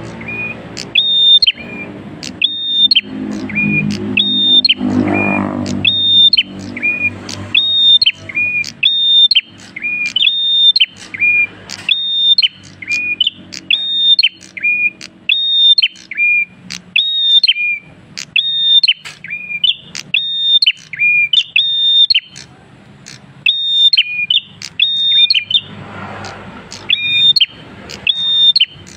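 Caged prenjak kristal songbird calling persistently: a loud two-note phrase, a high note dropping to a lower one, repeated about once a second.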